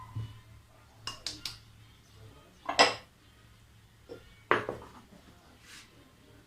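Kitchenware clinking and knocking as ingredients are handled for pizza dough: a quick run of three light clinks about a second in, one loud knock near three seconds, then two more knocks a little later.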